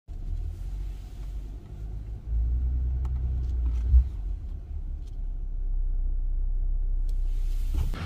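Jeep Gladiator driving, a steady low rumble, with a single thump about four seconds in and a few light clicks.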